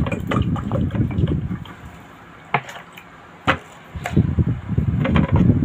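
Water pouring from a plastic bottle into a drinking glass, stopping about a second and a half in. Two sharp knocks about a second apart follow.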